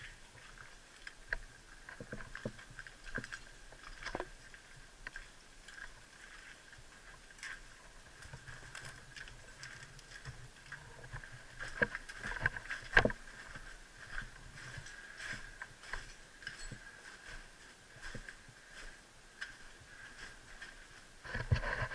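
Footsteps and the rustle of gear as airsoft players move on foot over rubble and concrete, with scattered small knocks and clicks; a couple of sharper clicks stand out a little past halfway. A faint steady high hum runs underneath.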